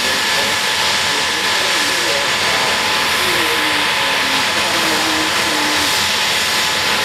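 Handley Page Victor K.2's Rolls-Royce Conway turbofan engines running steadily on the ground: a loud, even rushing hiss with a steady high-pitched whine.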